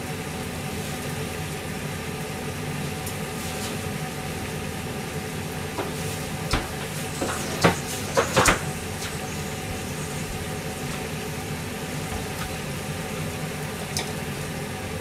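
Steady low hum and hiss from a kitchen gas stove burner under pans heating water and simmering vegetables. A few sharp knocks and clinks come about halfway through.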